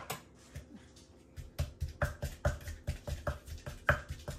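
Wooden pestle pounding in a mortar for papaya salad: a few scattered knocks, then from about a second and a half in a steady run of thuds, about three a second.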